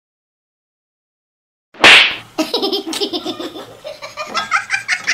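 Silence, then a loud sudden burst about two seconds in, followed by rapid, pulsing laughter that rises higher toward the end.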